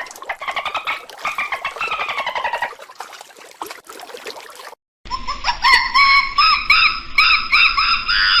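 Two different animal calls, one after the other. First a rapid pulsed call that falls slowly in pitch and fades out after about three seconds, then after a brief silence a run of quick, repeated chirping notes.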